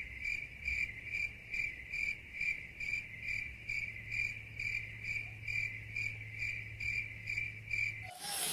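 Cricket chirping, an even chirp about two and a half times a second over a low steady hum. It starts and cuts off abruptly, as an edited-in 'crickets' sound effect for an awkward silence does.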